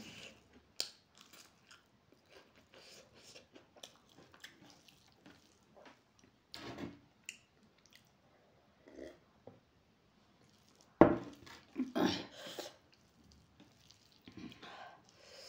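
Close-up eating sounds: chewing and crunching of a rice meal eaten by hand, with small wet mouth clicks. There is a louder sharp sound about eleven seconds in.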